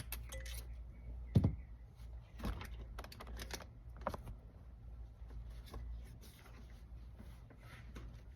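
Hands working plastic console parts and a towel-wrapped shifter: a series of clicks, knocks and rustles, the loudest a sharp knock about 1.4 s in.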